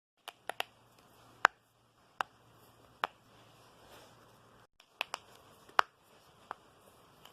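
Knuckles cracking: a series of about ten sharp pops at uneven intervals, the loudest about a second and a half in and again near six seconds in.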